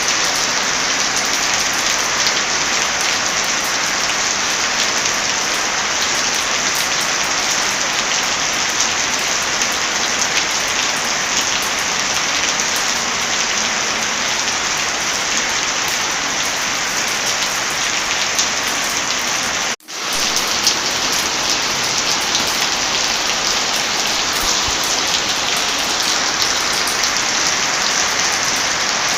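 Heavy rain falling steadily, a dense even hiss with scattered fine ticks. About twenty seconds in, the sound cuts out for a split second and swells straight back, as at a join in a looped recording.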